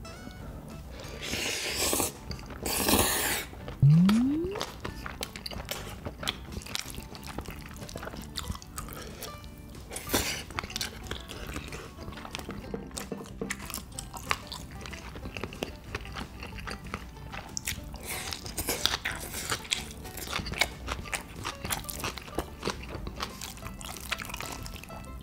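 Close-miked slurping and chewing of black-bean-sauce instant cup noodles: two loud slurps about two and three seconds in, then steady wet chewing and mouth clicks. A short rising tone sounds just after the slurps.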